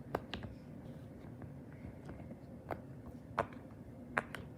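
Silicone pop-it fidget toy being pressed on its quiet side: a handful of soft, irregularly spaced pops.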